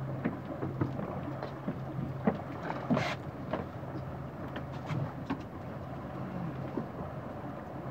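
Small fishing boat drifting at sea: water slapping and knocking against the hull at irregular moments over a steady low hum, with one louder splash about three seconds in.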